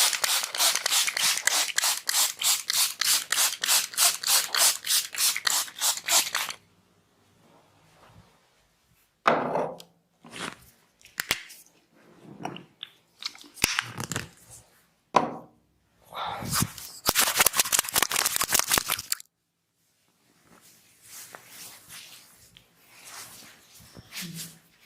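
Hands striking a person's head in a percussive massage, a rapid, even run of sharp slaps at about four or five a second for some six seconds. Scattered single strikes follow, then a second quick run for a few seconds and fainter strikes after it.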